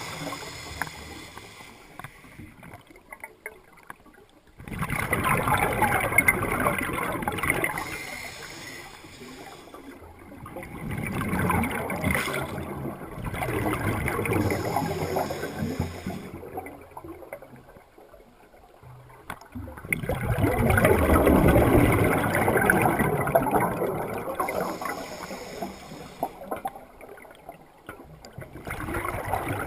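Small waves washing onto the shore and draining back, swelling and fading in slow surges about every eight seconds.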